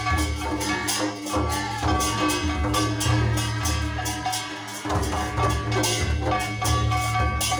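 Dance music with a steady drumbeat over a deep bass line; the bass drops out briefly about five seconds in.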